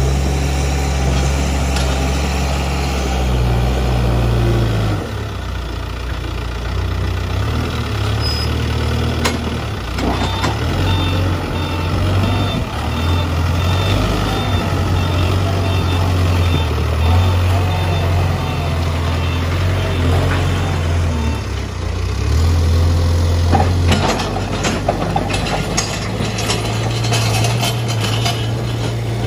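Case backhoe loader's diesel engine running, its speed dropping about five seconds in and then rising and falling as the machine works. A reversing alarm beeps steadily for about ten seconds in the middle, and a few knocks come near the end.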